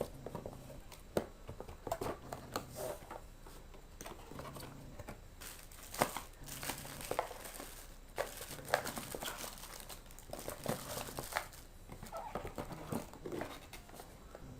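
Plastic packaging crinkling and rustling in irregular handling, with scattered light clicks and taps.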